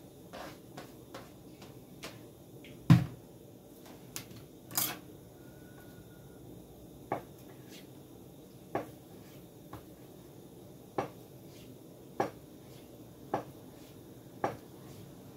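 Kitchen handling sounds: a heavy knock about three seconds in and another a couple of seconds later, then a slow series of single sharp taps about once a second, a knife slicing through onto a cutting board.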